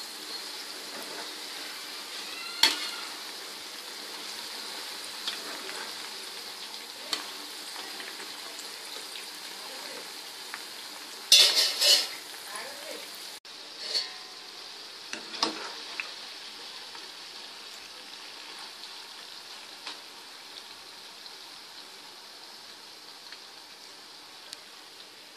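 Potato fries deep-frying in hot oil, a steady sizzle throughout. A wire skimmer knocks and clinks against the pan now and then as the fries are stirred, with the loudest clatter about eleven to twelve seconds in.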